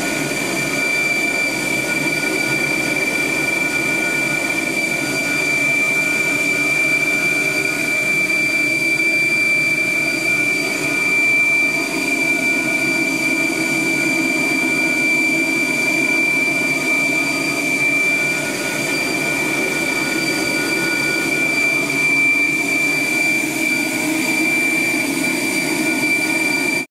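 Air rushing through an aeroacoustic flow-test duct, with a loud, steady high-pitched whistle from a flow-excited cavity resonating against its piezoelectric membrane. An even rush of air noise lies beneath the whistle.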